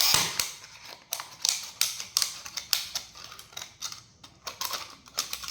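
Plastic being cut by hand: a run of sharp, irregular clicks and snips, loudest in the first second.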